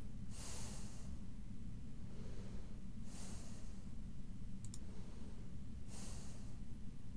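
Three slow breaths close to the microphone, roughly one every three seconds, over a steady low hum; a quick double click about two-thirds of the way through.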